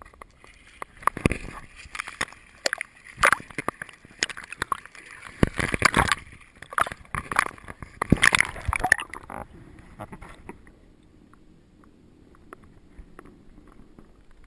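Lake water splashing and sloshing against a waterproof camera held at the waterline beside a pontoon boat, with many sharp splashes. About nine or ten seconds in the sound turns dull and muffled as the camera goes underwater.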